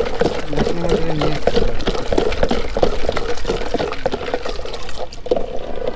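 Liquid pouring and sloshing, with a dense run of quick clicks and knocks from utensils and containers being handled at a street-food stall.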